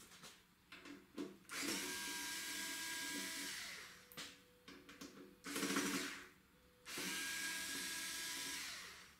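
Cordless electric screwdriver running twice, about two seconds each time, with a whine that drops in pitch as each run stops, backing out the screws of the recorder's metal top cover. A short loud noise falls between the two runs, with small clicks around them.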